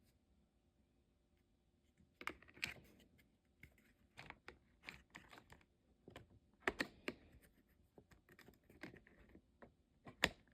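Irregular small clicks and taps of a mini chainsaw's chain, bar and cover being handled and fitted during assembly, starting about two seconds in.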